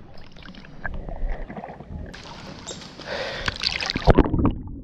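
Water sloshing and splashing against a waterproof camera held at the surface by a swimmer. Near the end the camera dips underwater and the sound turns muffled and dull.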